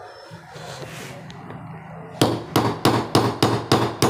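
Hammer tapping a metal drift rod to drive a new bush (bushing) into the base of a steel mixer-grinder jar: a quick, even run of sharp strikes, about four a second, starting about two seconds in.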